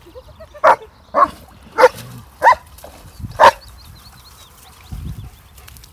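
Dog barking: five loud, sharp barks in about three seconds, then it stops.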